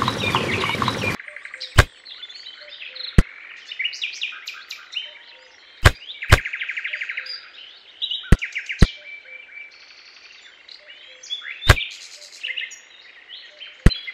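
Small white pebbles set down one at a time into a woven bamboo basket, each landing with a sharp click, about eight in all at uneven intervals. Birds chirp continuously behind them, and music cuts off about a second in.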